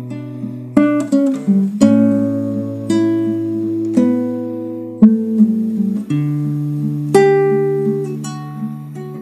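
Instrumental acoustic guitar music: notes and chords struck about once a second and left to ring, over low held bass notes.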